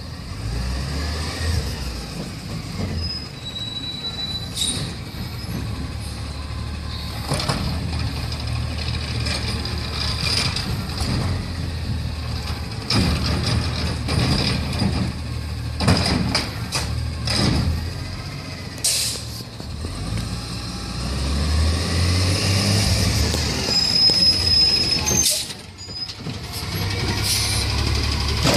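Autocar ACX garbage truck with a McNeilus ZR automated side-loader body running on its natural-gas engine as it rolls up and stops, with air brakes hissing, a couple of short high brake squeals and a string of metallic clanks from the body.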